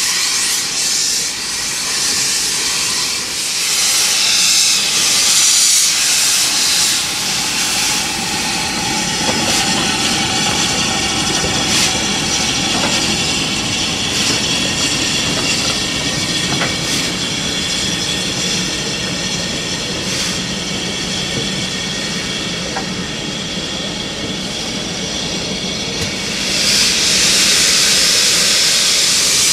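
Ivatt Class 4 2-6-0 steam locomotive venting steam in a loud, steady hiss, strongest in the first few seconds and again near the end, with a few sharp metallic knocks in between.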